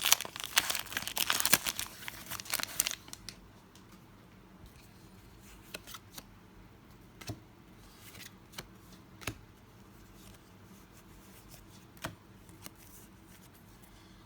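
Foil wrappers of Pokémon 151 booster packs crinkling and tearing open for about three seconds, then a quiet stretch with scattered faint clicks and rustles of packs and cards being handled.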